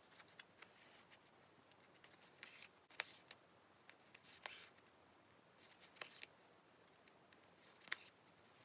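Faint rustling of a stuffed cotton pincushion being hand-stitched closed, as needle and thread are drawn through the fabric, with a few sharp little ticks, the clearest about three seconds in and near the end.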